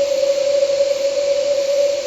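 Night-forest ambience of wind and night insects: an even hiss with one constant, unchanging drone, and no owl call.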